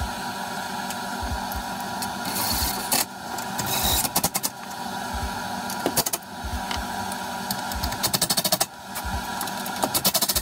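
Cordless drill spinning a socket on an extension bar to turn bolts on a steering rack. It runs in several short spurts, some ending in bursts of rapid clicking, with knocks of tools being handled in between.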